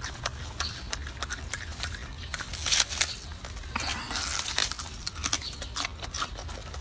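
Golden snub-nosed monkey biting and chewing crisp leafy greens: wet crunching and leaf tearing with many small clicks, louder crackly tearing about three seconds in and again around four seconds. A low steady hum lies underneath.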